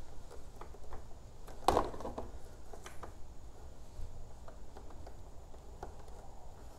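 Hands screwing a socket adapter into a garage door opener's light socket: small clicks and taps of plastic and metal, with one louder knock about two seconds in.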